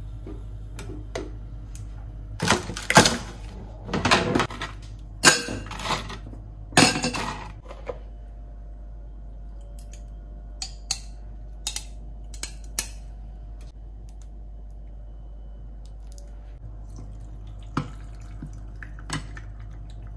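Ice cubes clattering into a metal tumbler in four loud bursts in the first half, followed by a few single sharp clinks of ice against the tumbler.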